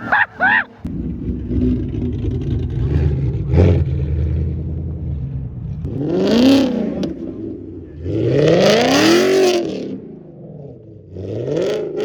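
V8 car engine revving hard in repeated pulls, its pitch sweeping up and back down about six seconds in, again around nine seconds and once more near the end, after running low and steady at first.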